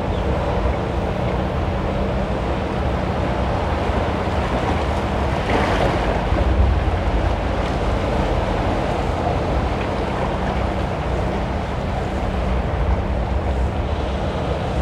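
Surf and choppy inlet water washing against rocks, with wind buffeting the microphone in a steady low rumble. A wave surges louder about six seconds in.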